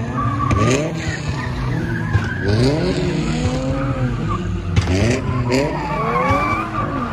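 Cars doing donuts: an engine revs up sharply about four times while the tires squeal and skid on the pavement.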